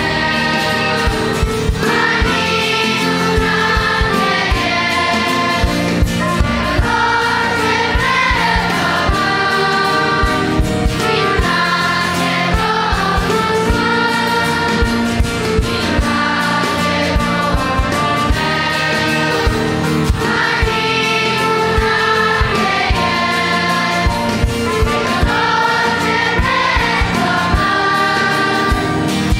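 Children's choir singing a Romanian Pentecostal hymn in unison, accompanied by a small band with accordion and guitar over a steady beat.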